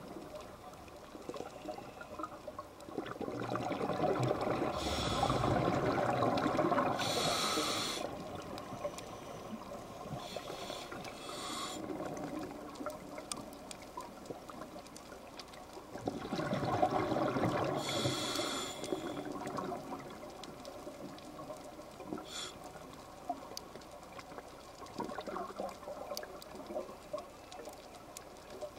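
A scuba diver's exhaled bubbles from the regulator, recorded underwater. There are two long bursts of bubbling, the first about three seconds in and the second about sixteen seconds in, with a steady low underwater wash between them.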